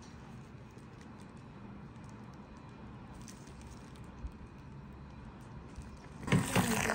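Whipping cream pouring in a thin stream into a ceramic bowl, faint and soft. Near the end a small handheld electric whisk starts up in the cream with a sudden louder clatter and whirr.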